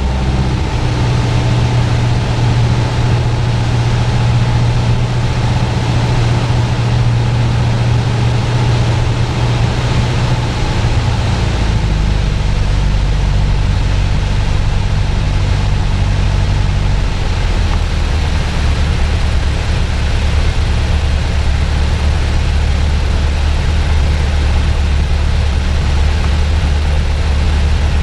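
Piper Warrior's four-cylinder piston engine and propeller droning steadily, heard inside the small plane's cabin along with rushing air. The engine note shifts lower about twelve seconds in and again a few seconds later.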